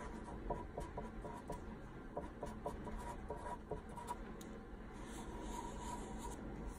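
Marker pen writing on paper: a quick run of short, faint strokes as letters are written, with softer, longer strokes near the end.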